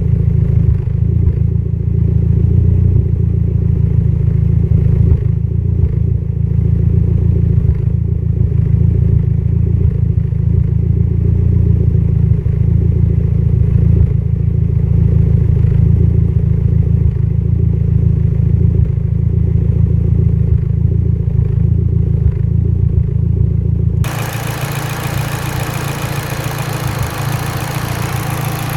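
Mitsubishi Lancer Evolution X's turbocharged 2.0-litre four-cylinder engine idling unevenly, with irregular stumbles through a deep rumble, the sign of a lean idle misfire. Near the end the sound changes abruptly, losing much of its low rumble and turning brighter and quieter.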